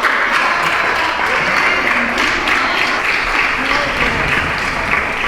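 Many people clapping at once, with voices mixed in, steady and dense throughout: the nightly 8 p.m. lockdown applause for health workers.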